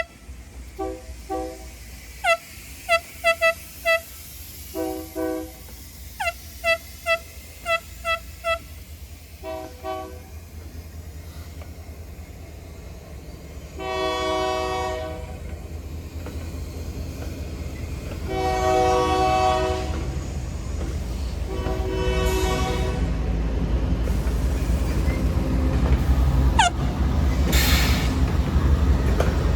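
Union Pacific diesel locomotive's air horn sounded in a run of quick short toots, then three longer blasts around the middle, over the low rumble of the approaching locomotive, which grows louder near the end.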